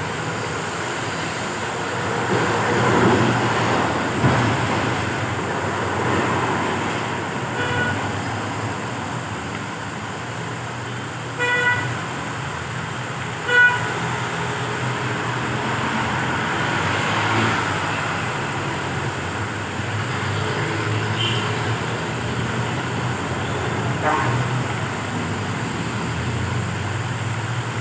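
Road traffic running by, with short vehicle-horn toots, the two loudest about two seconds apart near the middle.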